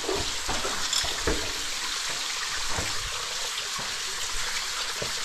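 Steady hiss of a cave waterfall, water falling and spraying onto rock, with a few soft knocks.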